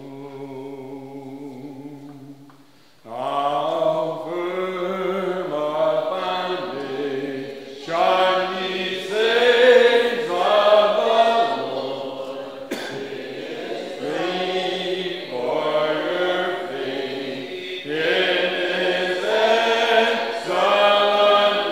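Church congregation singing a hymn without instruments: one man's voice holds the opening note for about three seconds, then the whole congregation comes in and sings on in phrases.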